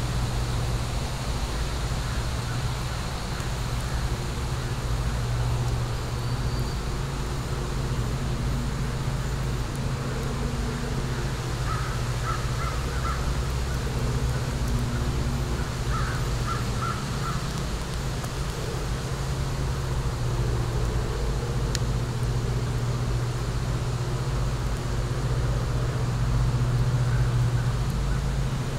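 Steady low outdoor rumble beside a burning wood fire pit, with a single sharp pop from the fire later on. A bird calls twice around the middle, each call a short run of quick notes.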